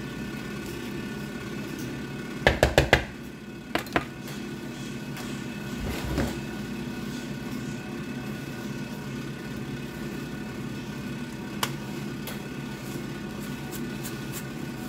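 A kitchen appliance motor hums steadily. About two and a half seconds in there are four quick sharp knocks, two more follow a second later, and one comes near the end.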